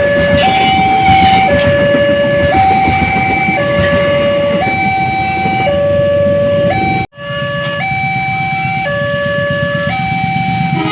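Railway level-crossing warning alarm: an electronic two-tone signal alternating between a low and a high tone about once a second, over steady low background noise. The sound cuts out for an instant about seven seconds in.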